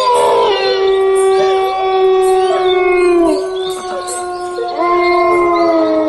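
Several dogs howling together: long, overlapping howls at different pitches that slide down at their ends, in two bouts with a short lull a little past halfway.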